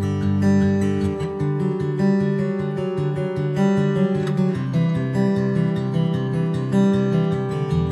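Background music led by strummed acoustic guitar, with sustained notes over a changing low line.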